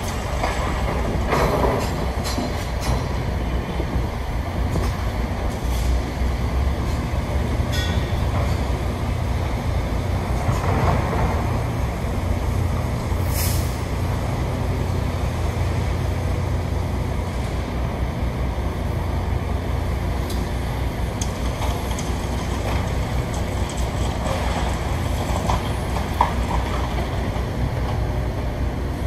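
Heavy diesel excavator and truck engines running steadily at a demolition site, with occasional clanks and knocks of metal and debris.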